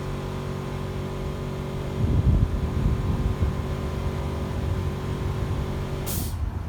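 Boat engine running with a steady drone. About two seconds in it swells into a louder, churning low rumble. Near the end a brief hiss sounds and the engine's steady tone drops away.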